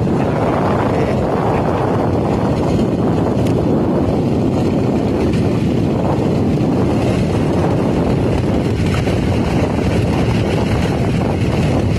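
Steady rush of wind buffeting the microphone over the low rumble of a moving vehicle, recorded on board as it travels along.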